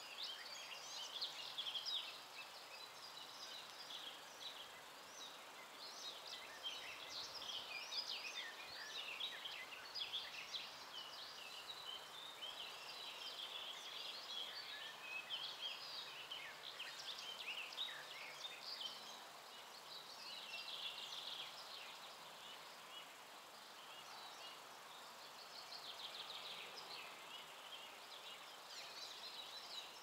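Songbirds singing: a dense run of short chirps and trills from several birds, over a faint steady outdoor hiss.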